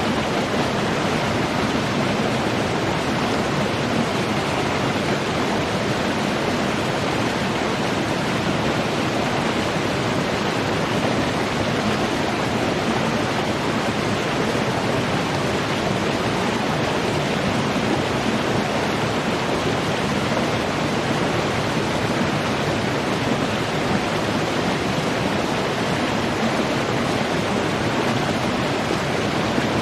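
Running water flowing steadily, an even, unbroken rush.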